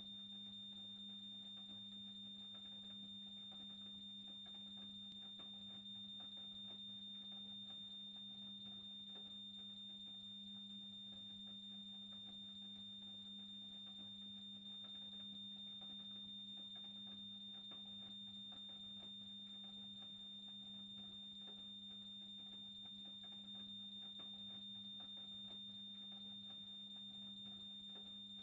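A steady, high-pitched electronic tone with fainter overtones above it, held unchanged over a low steady hum.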